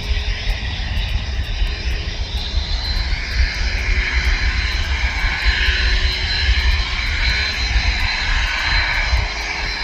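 Jet airliner engines running, a rushing noise that swells through the middle and eases near the end, over a low rumble, with a thin high whine.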